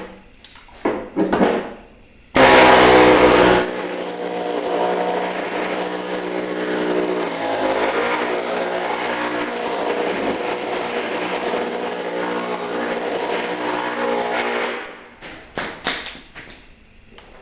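A power tool flanging the edge of sheet-steel patch metal runs for about twelve seconds. It starts abruptly and is loudest in its first second, runs steadily, then winds down. A few handling knocks and clatter come before and after it.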